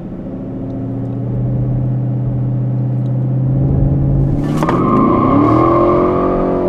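A 2019 Chevrolet Camaro SS's 455-horsepower 6.2-litre V8 held at steady revs on launch control, growing louder. About four and a half seconds in, the car launches: the engine note sweeps upward and the rear tyres start a steady high squeal as they spin.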